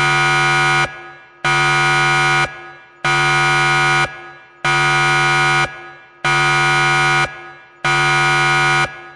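Countdown timer alarm going off: a loud buzzer tone about a second long, repeated six times with short gaps, each trailing off briefly, signalling that the countdown has run out.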